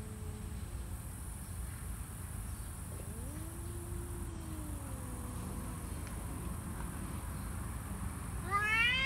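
Two stray cats, an orange tabby and a tabby, yowling at each other in a hostile standoff. Low, drawn-out wavering yowls come at the start and again a few seconds in. A loud, high yowl that rises and then falls starts near the end.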